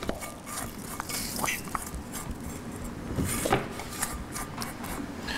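A spoon scraping and tapping spices out of a small black pan into a stainless steel mixing bowl, with scattered light scrapes and clinks.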